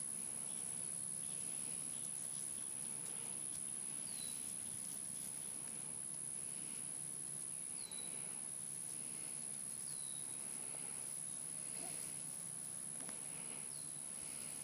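Faint outdoor insect and bird ambience: a steady insect drone with a soft pulse about once a second, and a bird giving a short downward-sliding call four times.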